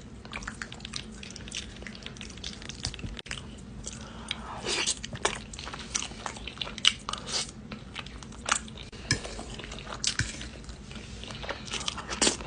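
A person chewing smothered chicken close to the microphone, with irregular wet clicks and crunches.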